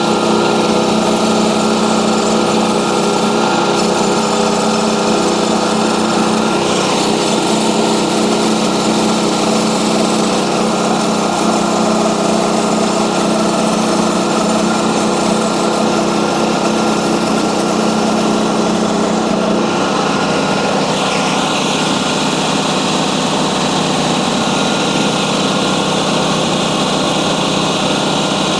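Small petrol engine of a portable bandsaw mill running steadily under load while the blade cuts through a log. The engine note shifts slightly about two-thirds of the way through.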